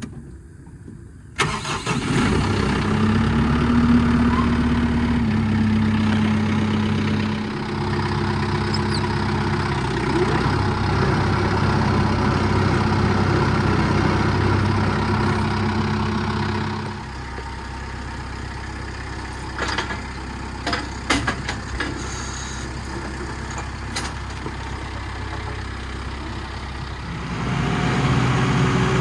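An engine starts suddenly about a second in and runs steadily, then drops to a quieter, lower idle about two-thirds of the way through, with a few sharp clicks and knocks. It picks up again near the end.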